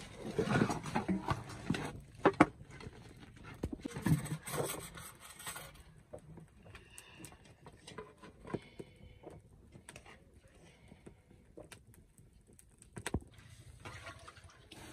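Metal cooking pots, lids and utensils clattering and knocking while food is handled over a wood fire. The clatter is dense for the first six seconds, then thins to scattered small clicks and taps.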